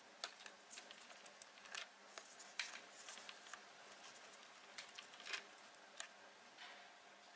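Faint, scattered small clicks and taps of hands working Play-Doh with a plastic cutter on a tabletop: the dough being flattened and the fish-shaped cutter pressed into it. A few of the taps stand out louder than the rest.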